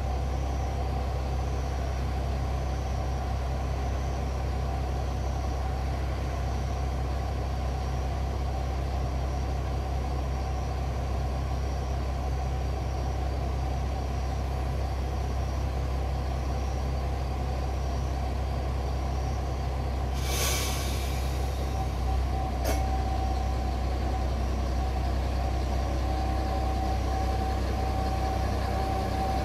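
Diesel railcar's engine idling steadily at the platform. About two-thirds of the way through there is a short hiss of released air, typical of the brakes being let off before departure, then a click. After that a steady whine joins the idle.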